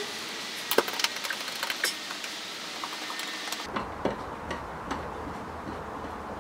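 Scattered light clicks and taps of hardware being handled while an outlet cover plate is fitted. About halfway through the background changes abruptly and a low hum comes in.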